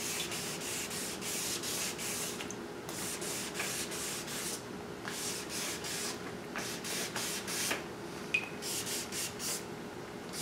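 Hand sanding with 600-grit sandpaper on a small block, rubbed back and forth over a painted bumper and polyester glazing putty: a scratchy rasp of short strokes, about three a second, with a few brief pauses. The sanding is levelling down runs in the fresh paint.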